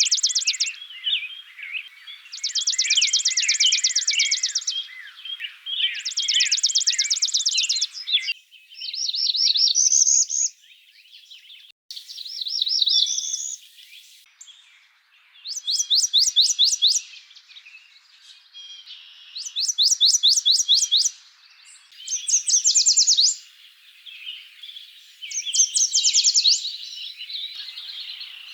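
Wild songbirds singing in succession. First one bird repeats a high, even trill of about two seconds every few seconds over a chorus of other birds chirping. Then other birds take over with short, high phrases of quick rising notes, repeated every few seconds.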